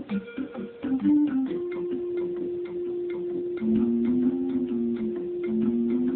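Cartoon intro music: a steady ticking beat under a short repeating low melody, with a long held note coming in about a second and a half in.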